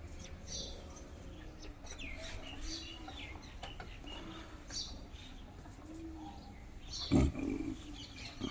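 Birds chirping, with several low, arching cooing calls like a dove's, and a brief knock about seven seconds in.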